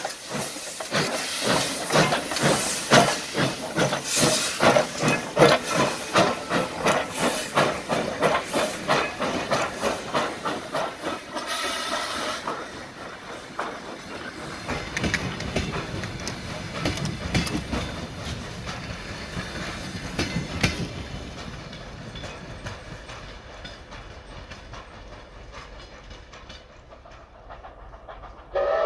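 Steam locomotive passing: regular exhaust chuffs with hissing steam for about twelve seconds, then passenger coaches rolling by with wheel clicks over the rail joints, the sound fading as the train moves off. A whistle starts right at the end.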